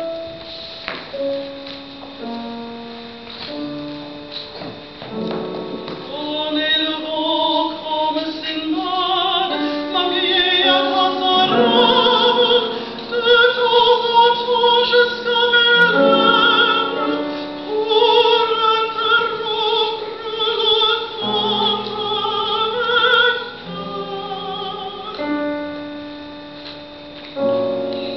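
A woman singing opera live with a wide vibrato over piano accompaniment. The piano plays alone for the first few seconds, the voice comes in about six seconds in, and the piano carries on alone again near the end.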